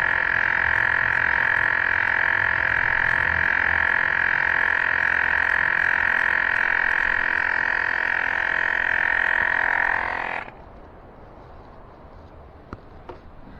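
Rechargeable electric bike pump running steadily with a buzzing drone while it inflates an e-bike tyre, then cutting off suddenly about ten seconds in. A couple of faint clicks follow near the end.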